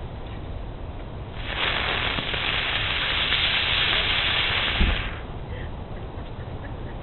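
A firework hissing as it burns for about three and a half seconds, with a low thump near the end as it dies away.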